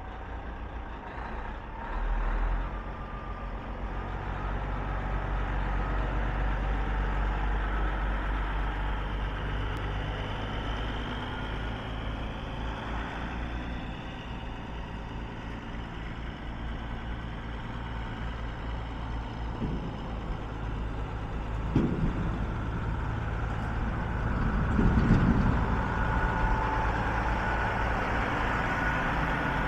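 Kenworth T600 grain truck's diesel engine running as the truck drives slowly and draws near. A steady low drone grows louder as it approaches, with a few brief louder knocks near the end.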